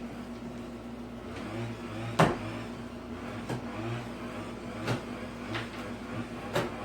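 A handful of sharp, separate knocks and clunks from hand work on the wall, the loudest about two seconds in, over a steady low hum.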